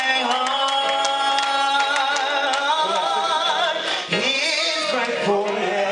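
A man singing a gospel song into a microphone over live band accompaniment, with drum cymbals ticking through it. He holds long notes with vibrato, and his voice dips and climbs again about four seconds in.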